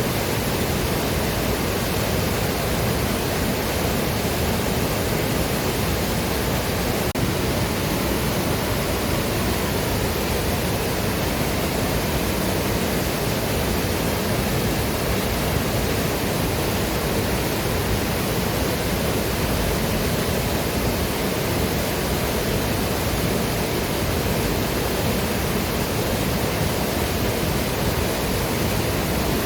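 Waterfall: falling water rushing in a steady, even noise that does not change.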